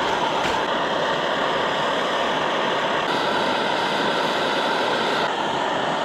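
Camp stove burner running with a steady hiss.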